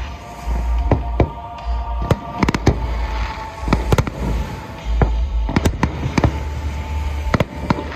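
Aerial fireworks bursting overhead: sharp bangs and cracks at irregular spacing, several a second.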